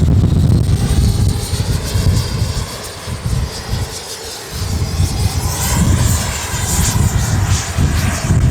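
Freewing Avanti S RC jet's 80 mm WeMoTec Midi Evo electric ducted fan whining at speed as it flies past, loudest in the second half. Heavy wind buffets the microphone throughout, easing briefly in the middle.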